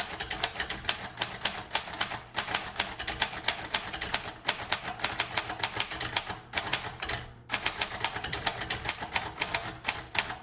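Typing on a 1935 Royal Model O portable manual typewriter: a quick, steady run of typebar strikes, with a few short pauses between words.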